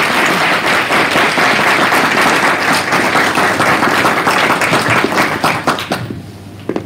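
Audience applauding, many hands clapping at once, then dying away about six seconds in.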